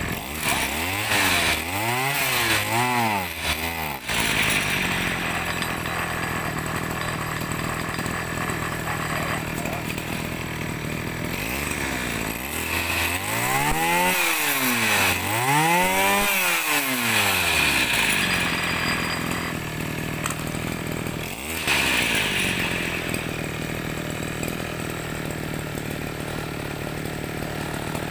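Small two-stroke sprayer engine idling and revved up and back down: three quick blips in the first few seconds, two longer revs midway, and one short blip later.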